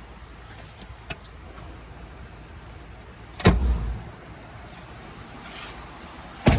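Two heavy thuds about three seconds apart, each followed by a brief low rumble: a pickup truck's door being shut.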